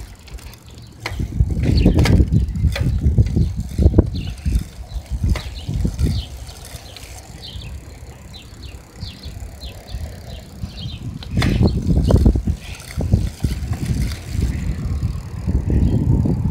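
Bicycle ride: an uneven low rumble from the tyres rolling over pavement and wind on the microphone, with scattered clicks and rattles from the bike. It eases off for a few seconds about halfway and then comes back louder.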